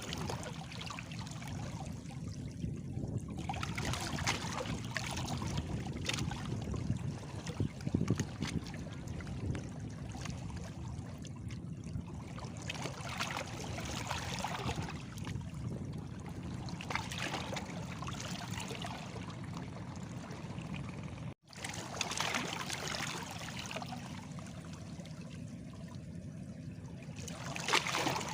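Small sea waves washing and lapping against stones, with a fresh surge every few seconds over a steady low wash of water. The sound cuts out for an instant about three-quarters of the way through.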